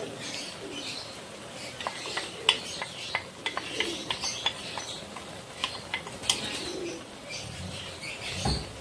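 Bitter gourd simmering in a non-stick wok as beaten egg is poured in from a glass bowl, with scattered light clicks and pops. A wooden spatula starts stirring near the end, with a low thump.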